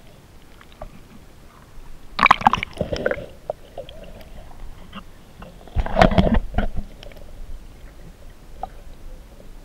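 Stream water sloshing and gurgling around a camera held under the surface, in two short bursts about four seconds apart, with faint clicks between them.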